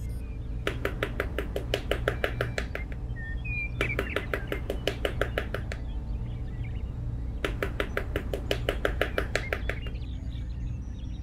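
Rapid, even tapping of a small hammer driving a thin stick post into sand, about eight to ten taps a second, in three runs of about two seconds each.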